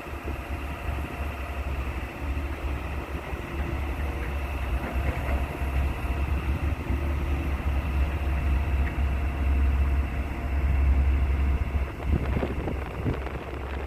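Heavy construction machine's engine running steadily with a deep rumble, a few knocks near the end.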